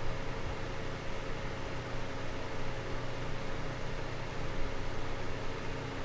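Small desk fan running steadily: an even rush of air with a faint constant motor hum.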